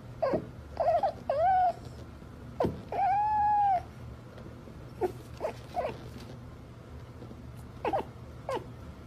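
A young colour-point cat meowing in a string of short, clipped calls, with one longer, drawn-out meow about three seconds in. A low steady hum runs underneath.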